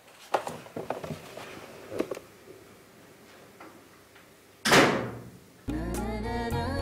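A few faint knocks and rustles, then about four and a half seconds in a loud whoosh transition effect that fades within half a second. About a second later, music begins with sustained chords over a steady bass.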